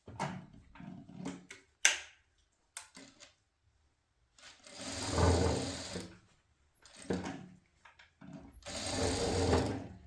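Sewing machine stitching in stop-start bursts. There are a few short runs and a sharp click in the first three seconds, then three runs of one to two seconds each with short pauses between them.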